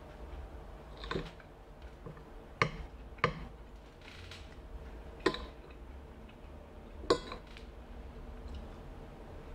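Metal spoon clinking and scraping against a plate as food is scooped up: about five sharp clicks, one to two seconds apart.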